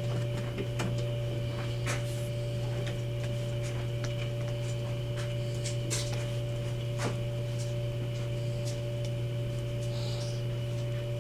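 Steady electrical hum from the stage sound system, with a fainter steady higher tone over it and a few scattered faint clicks and taps.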